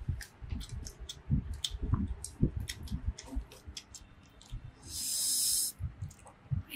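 Close-up eating sounds: chewing with many small wet mouth clicks and soft low thumps. About five seconds in, a loud hissing breath lasting about a second.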